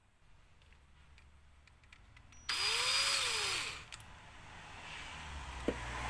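Power drill backing out the screws that hold a microwave fan motor: a few light clicks, then the drill runs for about a second, its pitch rising and falling, and starts running again near the end.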